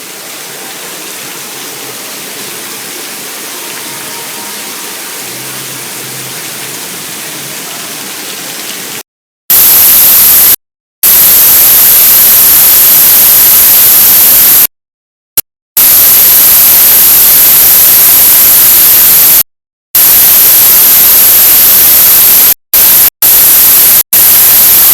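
Heavy tropical rain as a steady hiss for about nine seconds, then the audio turns into loud, harsh digital static that keeps cutting out and back in: a corrupted recording, which the uploader blames on the storm.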